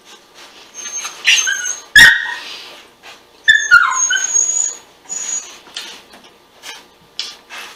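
A small dog whining in high-pitched whimpers, once about a second in and again from about three and a half seconds in, the second call sliding down in pitch. A sharp knock about two seconds in is the loudest sound, with faint chewing around it.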